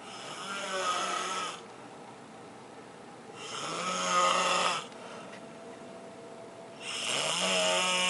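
A person snoring: three snores about three seconds apart, each lasting about a second and a half.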